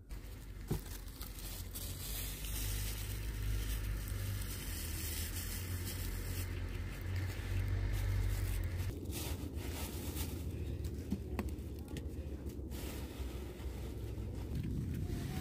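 Outdoor background: a steady low rumble with a faint haze and a few light clicks. The rumble drops away about nine seconds in.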